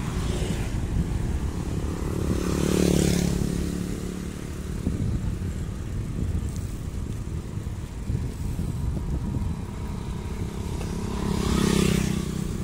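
Motorcycles pass close by twice, about three seconds in and again near the end, each engine hum swelling and fading. Under them runs a steady low rumble of wind on the microphone and bicycle tyres on a concrete lane.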